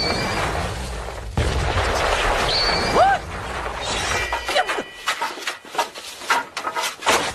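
Martial-arts fight sound effects: a rumbling rush of blasted dust and debris for about the first four seconds, with a swooping swish. It is followed by a rapid run of sharp hits and ringing metallic clangs.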